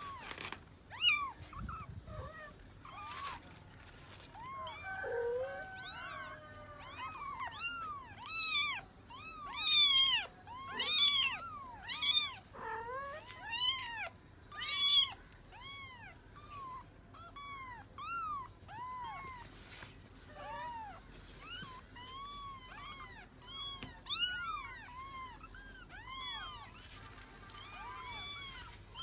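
Young kittens mewing over and over: many short, high-pitched cries, each rising and falling, overlapping one another and loudest in the middle stretch.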